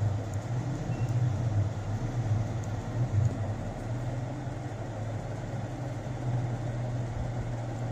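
Steady low mechanical hum with a rumbling noise, like a motor or machine running in the background.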